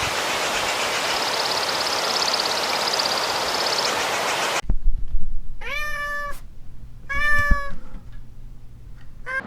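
A steady hiss cuts off abruptly, then a cat meows twice, two drawn-out calls about a second apart.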